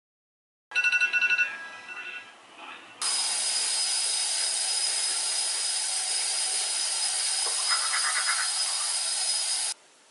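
Alarm ringtone sounding in a quick run of repeated beeping tones, then fading out. A loud, steady hiss then starts abruptly and cuts off suddenly near the end.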